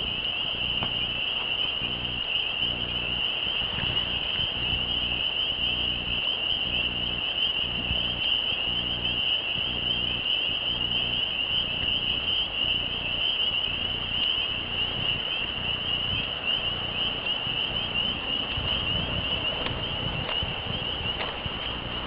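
Crickets trilling steadily in a continuous high chorus, with a low pulsing rumble underneath.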